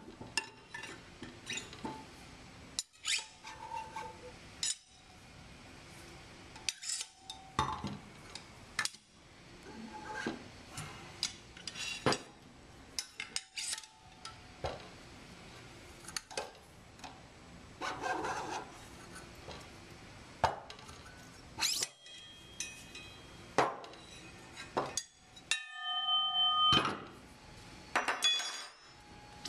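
Metal sampler housing, hand tools and loose parts clinking and knocking on a tabletop while seals are worked out of the housing with a hook tool. Near the end one metal part rings on briefly after a clang.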